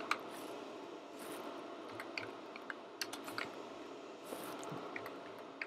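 Faint computer keyboard typing: irregular, scattered key clicks.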